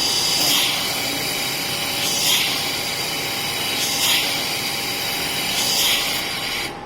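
Automatic laser welding machine for stainless steel pipe running through a cycle: a loud, even hiss that starts suddenly, swells about every second and three-quarters, and cuts off abruptly near the end.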